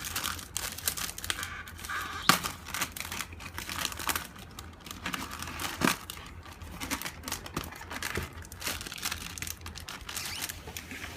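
Perfume packaging being opened by hand, a heavy silver outer box. Irregular crinkling, rustling and sharp clicks and scrapes as the box and its wrapping are handled.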